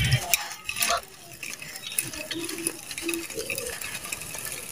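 Dry red sand-cement chunks crushed and crumbled by hand, the gritty grains pattering into a clay pot. The crunching is loudest in the first second, then gives way to a softer trickling patter.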